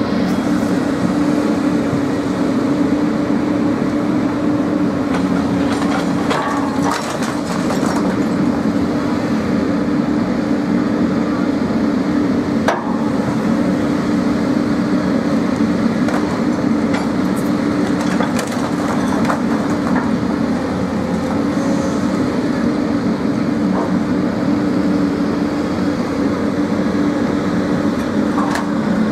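A steady, even engine drone that holds unchanged throughout, with a few faint clicks and knocks over it.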